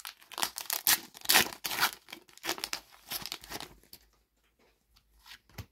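Foil wrapper of a Panini FIFA 365 trading card packet being torn open and crinkled. A run of dense crackling lasts about four seconds, then only a few faint ticks follow.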